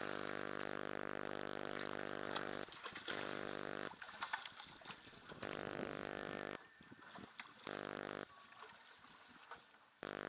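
A steady, even-pitched motor drone that starts and stops abruptly several times, alternating with quieter stretches of background noise and a few clicks.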